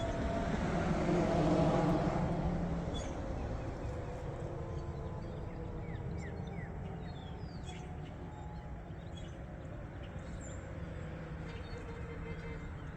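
Federal Signal 2001-130 rotating outdoor warning siren winding down, its tone sliding slowly lower and fading after a last swell about a second and a half in. A steady low rumble sits underneath, with a few short bird chirps in the middle.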